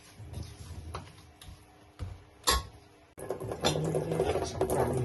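Kitchen handling sounds: a few light clicks and a sharper knock, then, about three seconds in, a sudden change to a busier, continuous clatter and rustle.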